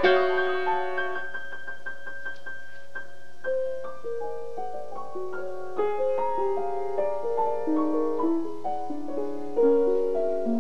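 Solo grand piano playing: a loud chord at the start, then a softer passage of single notes and moving lines, with a stronger accented chord near the end.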